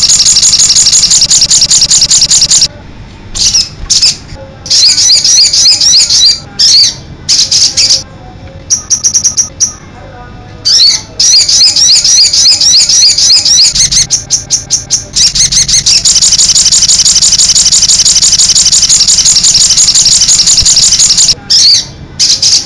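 Crested jay (sogon) calling in long, fast, high-pitched rattling trills. The trill breaks into short choppy bursts a few seconds in, runs unbroken again through the middle, and stops briefly near the end.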